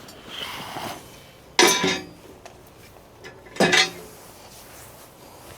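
Two loud metal clanks about two seconds apart, each with a short ring: the mini excavator's cover panels being handled and set down as they are opened.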